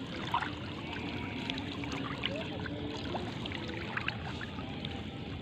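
Water splashing and trickling close by, with many small sharp splashes and drips.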